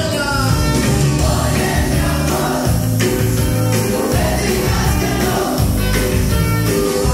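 Loud dance music with a singer and a strong, pulsing bass line, played over a DJ sound system.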